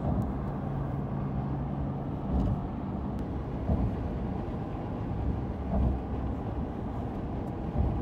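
Steady road noise inside a moving car at highway speed: a low rumble of tyres and engine, with a faint hum in the first few seconds and a few brief bumps.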